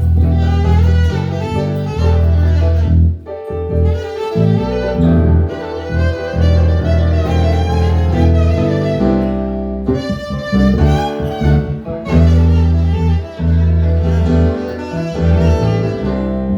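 Instrumental music: a violin playing a melody over deep, held bass notes.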